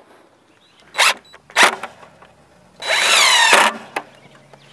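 Cordless drill running into wood as a board and solar panel bracket are fastened to a wooden fence post. Two short pulses come about a second in, then a longer run of under a second near the three-second mark, its motor whine falling in pitch.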